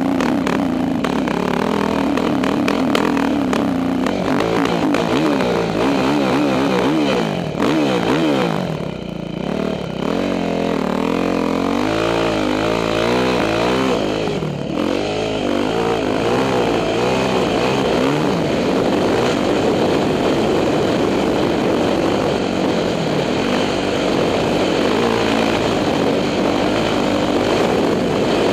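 2006 Yamaha YZ450F's four-stroke single-cylinder engine running under changing throttle while riding, its pitch rising and falling as the rider rolls on and off. It eases off briefly about eight seconds in and again near fifteen seconds before pulling again.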